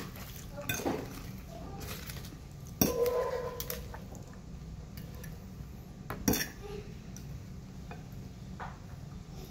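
Metal fork clinking and scraping against a plate while eating, with a few sharp clinks; the loudest come about three seconds in and again about six seconds in.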